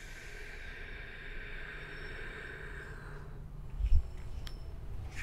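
A person's long, deep inhale close to the microphone, a soft hiss that fades out about three seconds in, taken on the cue to breathe in while holding the pose. A low thump follows near four seconds, then a small click.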